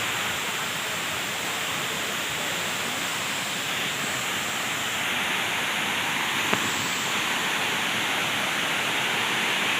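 Water pouring down a waterfall in a steady rush, with one brief click about two-thirds of the way through.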